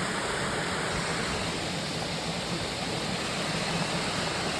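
Steady rushing of a stream cascade, water pouring over rock into a pool.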